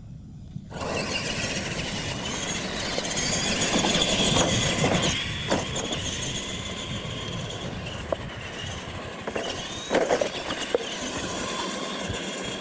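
Two electric R/C monster trucks racing on dirt: their motors and gears whine, rising and falling with the throttle, over tyre noise on the dirt. The sound starts suddenly about a second in as they launch, with a few sharp knocks along the way.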